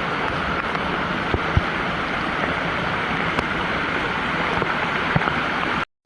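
Floodwater rushing in a steady, even roar, with a few faint clicks; it cuts off abruptly near the end.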